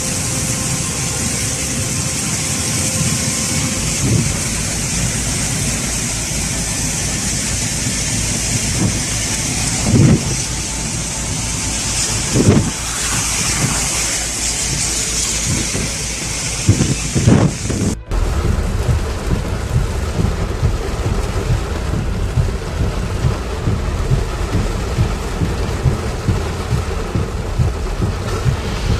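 Heavy rain pouring steadily, with a few sudden low booms of thunder partway through. About two-thirds of the way in, the sound cuts abruptly to a lower, rumbling storm noise of rain with thunder.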